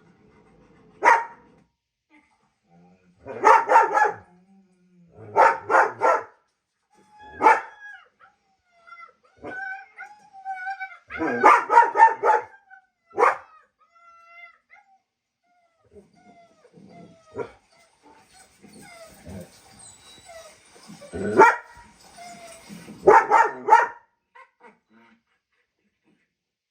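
Dog barking in bursts, sometimes a single bark and sometimes a quick run of several, with drawn-out whining or howling sounds between the bursts.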